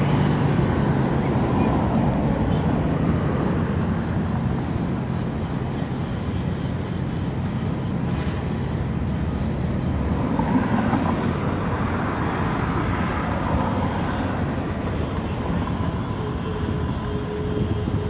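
Steady low rumble of a boat's engine over water, mixed with wind noise, with a thin steady hum joining near the end.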